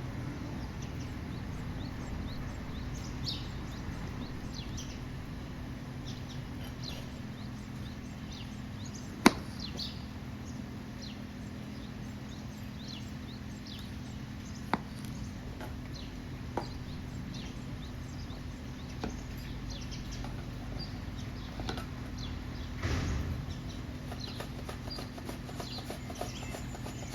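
Outdoor ambience with birds chirping throughout and a steady low hum, broken by a few sharp knocks, the loudest about nine seconds in.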